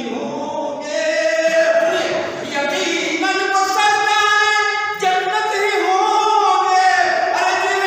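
A man singing verse unaccompanied into a microphone, in a melodic recitation with long held notes.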